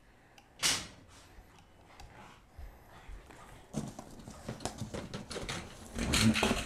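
Boston terrier playing with a rope toy on bedding: scattered rustles, soft knocks and mouthing noises that grow busier in the second half, with one sharp noise under a second in.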